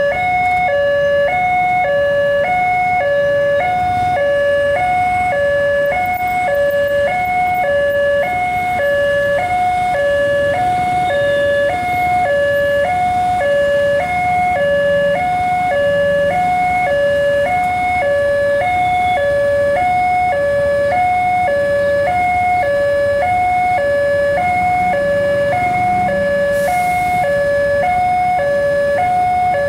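Railway level-crossing warning siren sounding a steady two-tone alarm that switches back and forth between a higher and a lower pitch, each held for under a second. It signals that a train is approaching and the barriers are down.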